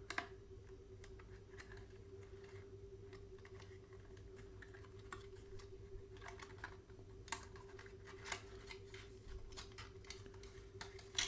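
Irregular small clicks and light rustles of a clip stapler being taken out of its packaging by hand, with a few sharper clicks among them, over a faint steady hum.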